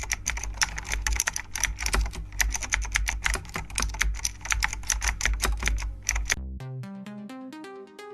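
Fast, continuous typing on a computer keyboard, a dense run of key clicks over a bass-heavy music track. The typing stops about six seconds in, leaving a light melodic tune.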